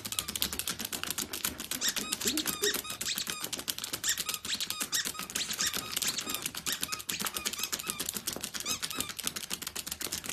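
Dachshund puppies' claws tapping and scratching fast on a tablet screen, a dense run of clicks, with short high squeaks scattered among them.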